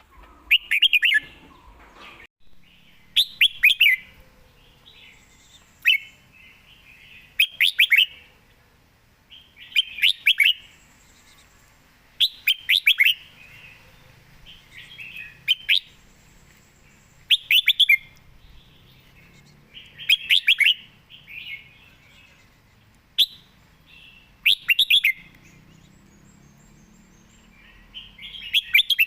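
A red-whiskered bulbul singing short, quick warbled phrases, about a dozen of them, each a second or less, repeating every two to three seconds.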